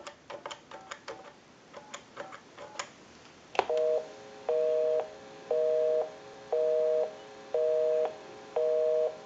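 Faint clicks as a number is keyed on the telephone's added push-button keypad. Then a click and the telephone busy signal: a low two-note beep, half a second on and half a second off, about once a second, meaning the called line is busy.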